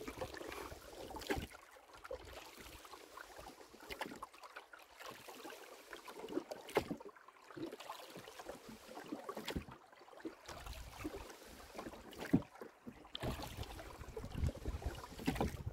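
Oars working a rowboat: water swishing with the strokes and a few sharp knocks, with wind rumbling on the lavalier microphone, stronger from about two-thirds of the way through.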